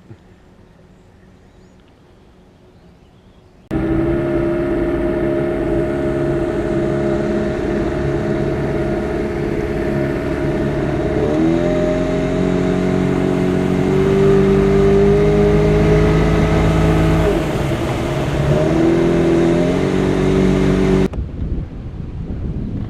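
Motorboat engine running at speed. It starts abruptly about four seconds in, shifts pitch up and down a few times with throttle changes, and cuts off abruptly a couple of seconds before the end.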